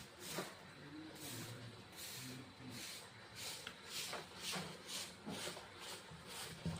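Rapid, short hissing breaths, about two a second, typical of a person struggling for breath.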